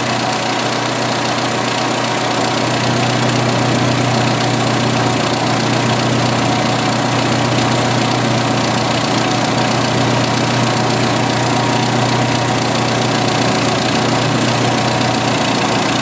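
1986 Jeep Cherokee XJ's 2.5-litre four-cylinder engine idling steadily and smoothly under the open hood, with its crankcase-ventilation vacuum leak fixed.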